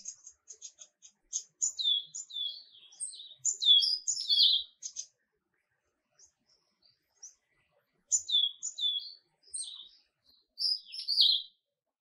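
A small songbird singing high, quick chirps and down-slurred whistles in two bouts, with a pause of about three seconds between them.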